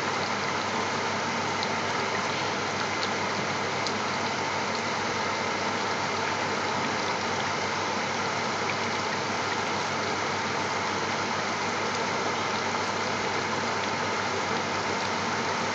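Steady rushing hum of stovetop kitchen noise around a pan of curry simmering on a gas hob, with a few faint ticks.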